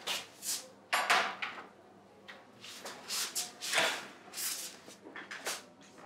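A meal tray with dishes being carried and set down on an overbed table: a series of short knocks, rattles and clinks, the loudest just before four seconds in.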